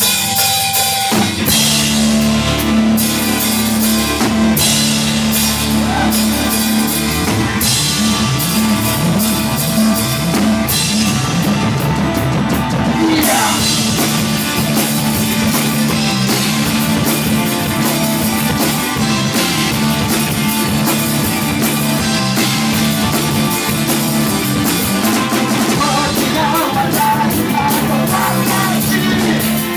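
Live rock band playing at full volume: drum kit, bass guitar and keyboards, with a held tone at the start before the full band comes in about a second in, and a woman singing near the end. The recording is overloaded, so the sound is distorted and cracking.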